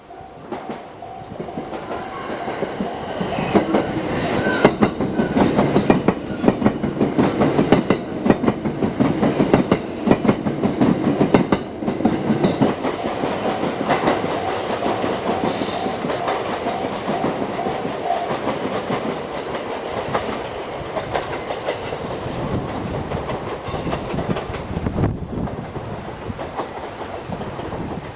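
The Twilight Express Mizukaze, a JR West Kiha 87 series diesel-hybrid train, passing over a level crossing, its wheels clickety-clacking over the rail joints, growing louder over the first few seconds. The crossing's warning bell rings steadily under it.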